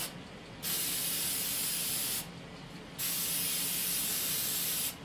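Aerosol can of clear lacquer spraying in two bursts of about a second and a half each, a hiss that starts and stops sharply.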